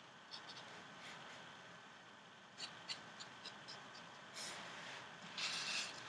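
Fine-tip pen scratching across a paper card in short drawing strokes: a run of light ticks as the tip touches down, then two longer scratches about four and a half and five and a half seconds in, the second the loudest.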